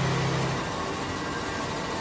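Machinery of a quilt production line running: a steady mechanical whirr and hum from the conveyors and quilting machine, with a low hum that cuts off about half a second in.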